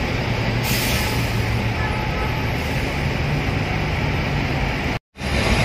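Steady low drone of a bus's diesel engine and exhaust, heard from inside a vehicle following close behind. A short burst of hiss comes about a second in, and the sound drops out for a moment near the end.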